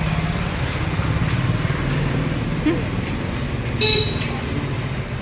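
Motorbike and road traffic running steadily, with one short horn beep about four seconds in.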